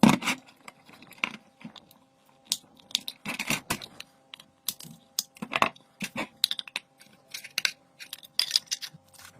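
Irregular clicks, taps and knocks of small hard parts being handled and set down on a workbench, the loudest at the start, about three and a half seconds in and near the middle, over a faint steady hum.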